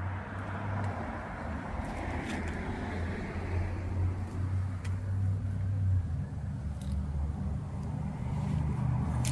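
Street traffic: a steady low engine hum with tyre noise from passing cars, swelling and fading a couple of times.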